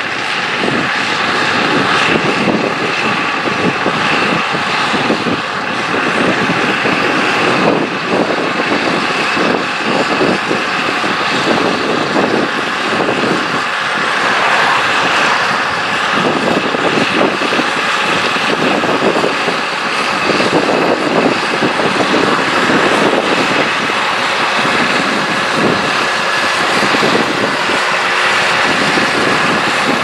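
Massey Ferguson 8480 tractor's six-cylinder diesel engine running steadily under load, pulling a Sulky combination drill.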